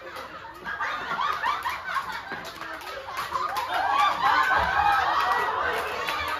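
Crowd of onlookers laughing and calling out excitedly, many voices overlapping, getting louder about four seconds in.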